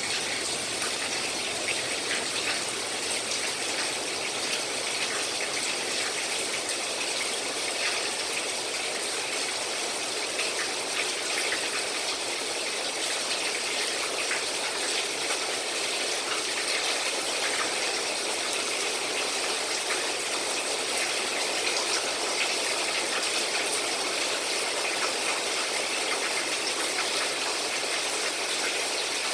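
Rainwater falling off the eaves in a steady stream of drips and splashes, the many separate drops heard over an even rushing wash.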